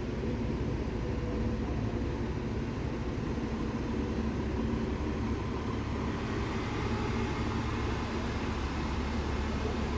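Diesel engine of a SANY STC250 truck crane running steadily as the heavy truck drives slowly past, a continuous low engine sound.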